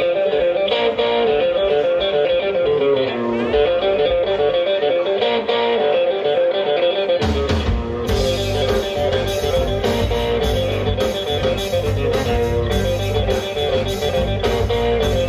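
Live band opening a song: electric guitar playing a melodic line on its own, then bass and drums come in about seven seconds in and the full band plays on.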